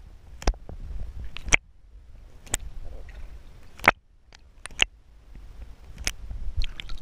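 Sharp clicks and knocks, about half a dozen, over a low rumble, as picked up by a camera in a waterproof housing held underwater.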